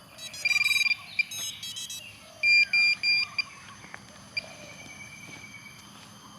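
Electronic beeps from a DIY FPV drone setup: a quick run of short high beeps at the start, three short beeps about two and a half seconds in, then one long steady beep around four and a half seconds in.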